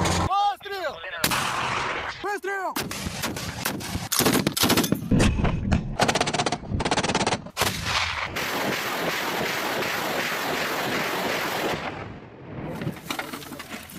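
Soviet-made heavy weapons firing in quick-cut clips: two short whines rising and falling in pitch, then a run of sharp shots and blasts from a tank gun, then a long steady roar of a truck-mounted multiple rocket launcher's salvo that fades about twelve seconds in.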